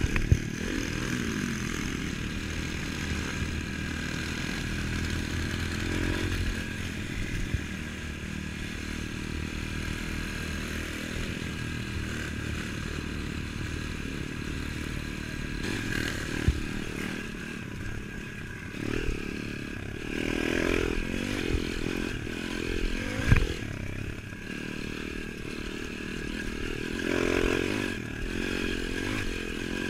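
Pit bike engine running under way, heard close up from the bike's handlebars. In the second half the revs rise and fall several times, with a few sharp knocks and rattles from the bike over the track.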